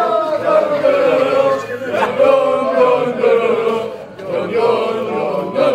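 A group of men chanting loudly together in unison, a continuous sung chant with a short break about four seconds in.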